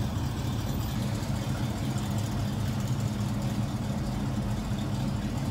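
Engines of a 1971 Oldsmobile Cutlass and a 1968 Chevrolet Chevelle idling steadily side by side, an even low-pitched drone.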